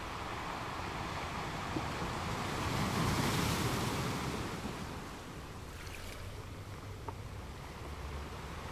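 Ocean surf with wind: a steady wash of waves, one wave swelling louder about three seconds in and then fading back.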